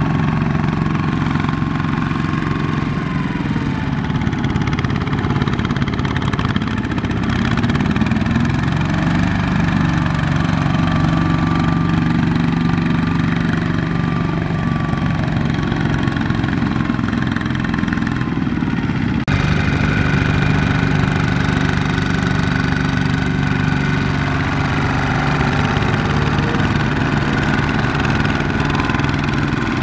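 Single-cylinder diesel engines of several Kubota ZT155 two-wheel walking tractors running steadily as they pull loaded trailers. The sound shifts abruptly about two-thirds of the way through.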